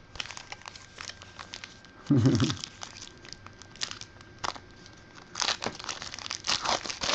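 Football trading card pack wrappers crinkling and tearing as packs are ripped open and the cards handled, a dense crackle that grows busier about five and a half seconds in. A short low thump about two seconds in.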